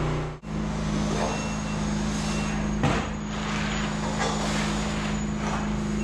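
Concrete mixer truck's diesel engine running steadily while the drum discharges concrete, with a single sharp knock a little under three seconds in.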